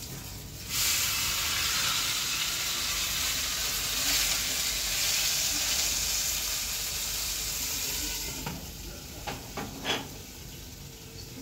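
Fish frying in hot oil in an uncovered pan, a loud steady sizzle that starts about a second in. Near the end the sizzle dies down and a few sharp metal clinks are heard as the pan is covered with its lid.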